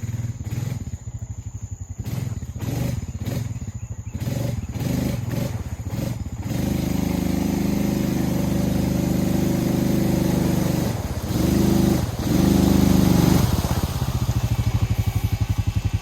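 Honda Rubicon 520 ATV's single-cylinder engine idling, then revved hard and held for several seconds, with two brief drops near the end, before falling back to idle. The rider is trying to power the ATV out of a deep mud hole it is stuck in.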